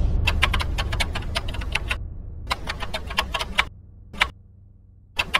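Typing: quick runs of sharp key clicks, a fast run of about two seconds, a pause, another run, one lone click, then a short last run near the end, over a steady low hum.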